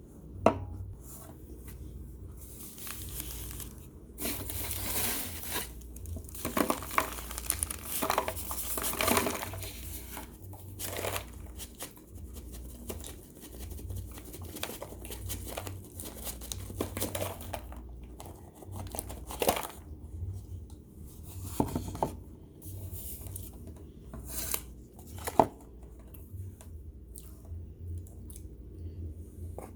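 Baked cornstarch chunks being broken apart and handled: irregular crumbly crackling and rustling, with two sharp clicks, one just after the start and one near the end.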